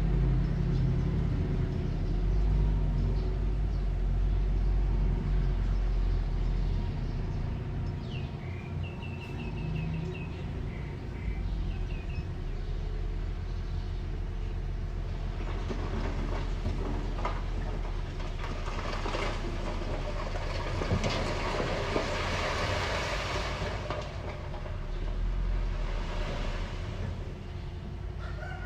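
Diesel engine of a small crawler bulldozer running steadily, with the clatter of its steel tracks. A few short squeaks come about eight to twelve seconds in, and a louder rushing noise builds from about sixteen seconds and fades after about twenty-four.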